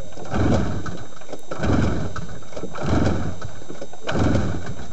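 Two-stroke snowmobile engine being cranked by its recoil pull-starter, four pulls a little over a second apart, each a brief whirring crank that never catches. The engine is flooded with fuel in the crankcase and is being cranked with the fuel line off to clear it.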